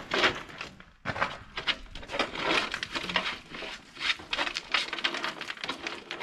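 Stones and rubble clattering and scraping as they are handled, with many quick, irregular knocks.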